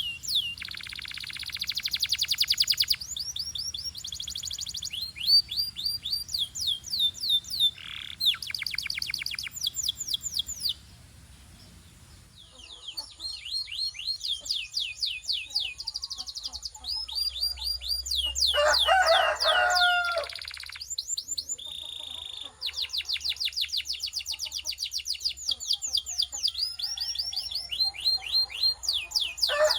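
Canaries singing: long trills of rapidly repeated, downward-sweeping high notes, with varied rolls and chirps. The song breaks off briefly about eleven seconds in, then resumes, and a lower call cuts in near the twenty-second mark.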